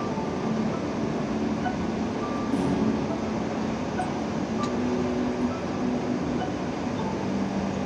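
Steady hiss and hum inside a parked Boeing 787 at the gate, with faint short tones scattered through it.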